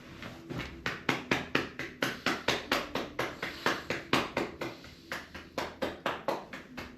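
Percussive massage on a person's body: quick rhythmic slapping strikes, about four a second, starting about half a second in.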